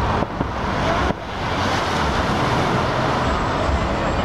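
Aerial fireworks display heard from shore: shell bursts under a dense, steady wash of noise. The sound drops off sharply about a second in, then builds back up.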